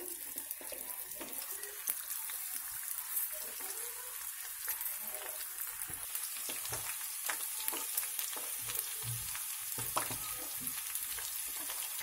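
Marinated chicken pieces deep-frying in hot oil in a pan: a steady sizzle with many small crackles.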